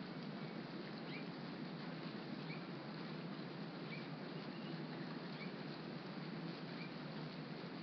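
Rain falling steadily, an even patter, with a faint short high chirp repeating about every second and a half.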